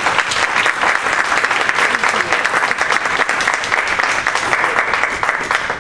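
An audience clapping steadily, a dense patter of many hands that stops near the end.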